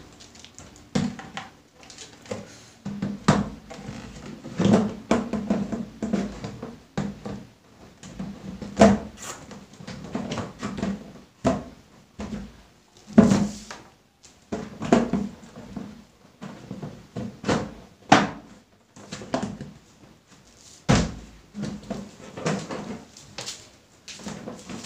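Plastic cabinet doors and panels being fitted into a plastic frame and worked shut: an irregular run of hollow plastic knocks, clicks and thuds, a few of them sharper and louder.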